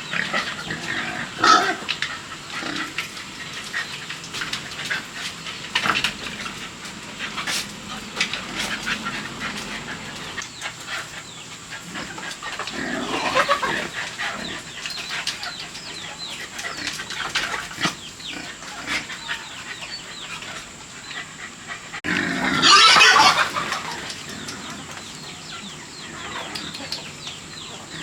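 A dog's noisy vocal sounds among scattered clicks and rustles, loudest in a burst about three-quarters of the way through.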